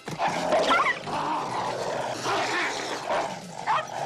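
A dog and a wolf snarling and growling at each other in a fight, with short high yelps about a second in and again near the end.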